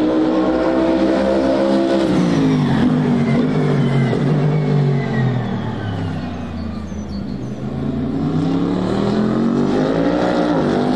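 Toyota GR GT3 race-car prototype's twin-turbo V8 engine. The note is high and steady, drops over about two seconds as the car slows for a corner, runs low for a few seconds, then climbs again as it accelerates out.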